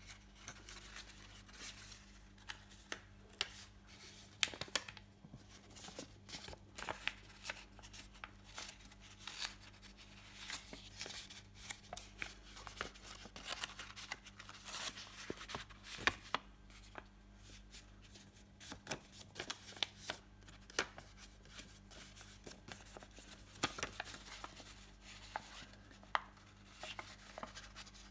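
A sheet of paper being folded and creased by hand on a table: irregular taps, clicks and brief rustles as the folds are pressed flat.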